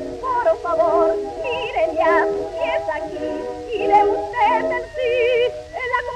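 1910 acoustic 78 rpm record of a Spanish cuplé playing: a melody line with wide vibrato over accompaniment, thin and with almost no bass.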